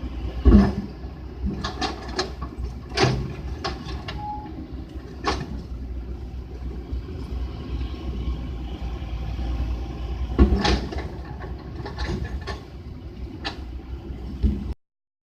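Heavy truck engine running low and steady, with several sharp knocks scattered through.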